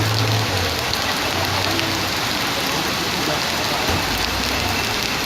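Steady rain falling, an even hiss of rain on surfaces.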